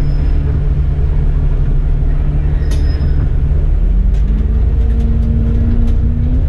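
Bus engine and drivetrain heard from the driver's cab as the bus pulls away: a steady low rumble, with a whine that rises about four seconds in and then holds.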